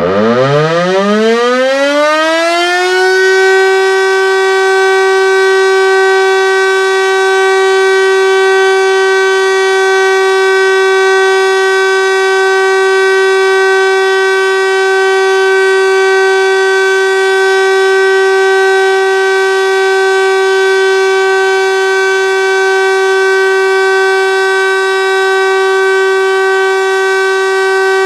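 Landert MSL-3 motor siren spinning up from rest, its pitch climbing for about three seconds, then holding a steady, loud tone.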